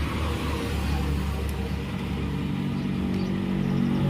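Steady low mechanical drone with a few faint ticks.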